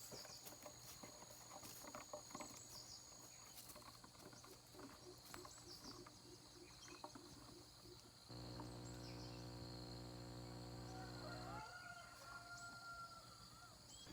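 Faint outdoor ambience of steady insect buzzing with a few short bird chirps. About eight seconds in, a steady low hum starts abruptly, runs for about three seconds and cuts off.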